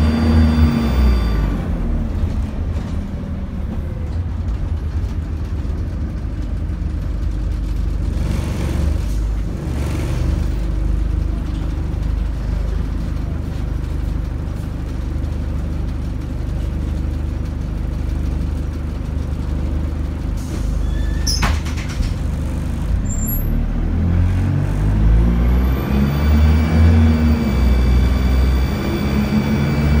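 Dennis Dart single-deck bus heard from inside the saloon while driving. The engine drops in pitch as it eases off at the start and runs as a steadier low drone through the middle, with brief hisses about a third of the way in and a sharp click later. Near the end it pulls away again, its pitch rising and falling as the bus accelerates.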